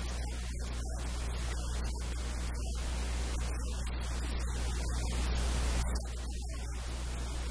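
Steady static-like hiss over a low, constant electrical hum, with no other sound standing out.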